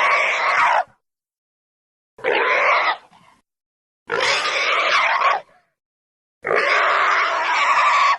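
Dakotaraptor dinosaur sound effects: a run of harsh, raspy calls, four separate ones each lasting about one to one and a half seconds, with silence between them. Each call starts and stops abruptly; the first is already sounding and ends about a second in, and the last is cut off at the end.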